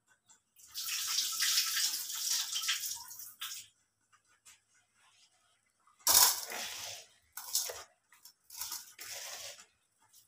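Soaked rice being rinsed: water pouring and splashing in several bursts, the longest about three seconds near the start, with three shorter ones later.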